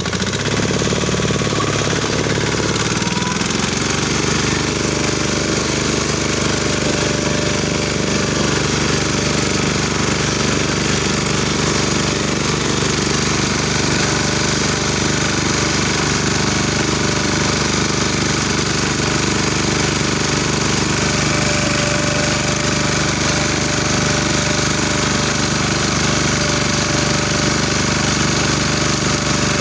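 BCS four-wheel reaper binder running: an engine drone with a fast, steady mechanical rattle from the working machine. The pitch shifts over the first few seconds, then holds steady.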